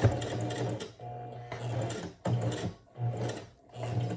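Domestic sewing machine stitching slowly in about five short start-stop runs of half a second to a second each. It is sewing a comb into a wig, worked slowly so the needle does not strike the comb.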